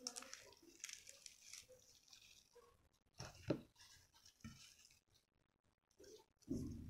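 Crisp, flaky lachchha paratha torn apart by hand, its layers crackling softly, with a sharp louder sound about three and a half seconds in and a dull thump near the end.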